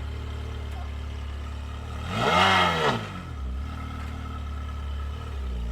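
Ferrari 360 Modena's V8 engine idling, with one quick throttle blip about two seconds in that rises and falls in pitch before settling back to idle.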